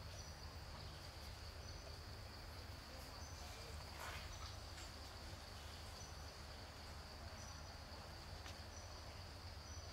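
Outdoor ambience: a steady high-pitched insect drone over a low background rumble, with short faint peeps every second or two and a few faint clicks.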